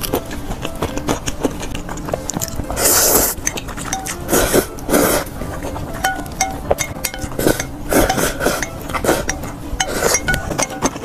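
Noodles being slurped up by mouth in several loud slurps, with wooden chopsticks clicking and scraping against a glass bowl in between.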